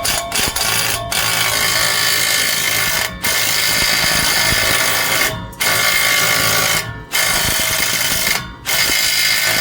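Impact wrench hammering on a car's front axle nut in several long bursts with brief pauses between them; the nut stays stuck and does not break loose.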